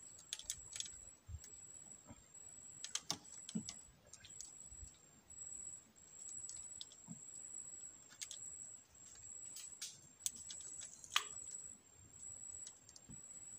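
Scattered sharp clicks and a few light knocks from fishing rods and tackle being handled in a wooden boat. A high, thin buzz runs in the background, breaking off every second or so.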